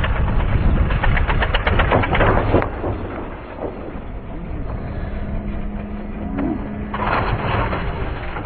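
A vehicle engine running. It is loudest in the first two and a half seconds, settles into a steadier hum through the middle, and rises again about seven seconds in.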